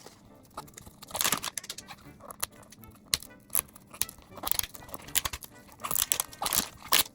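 Mystery toy packaging being handled and torn open: irregular bursts of crinkling and tearing, the loudest near the end.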